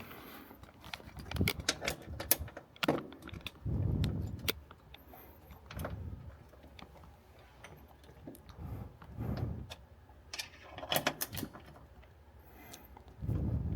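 Small metal hand tools clinking and clicking: a 1/4-inch socket wrench being fitted and turned on bolts, in scattered clusters of sharp clicks, with dull handling bumps in between.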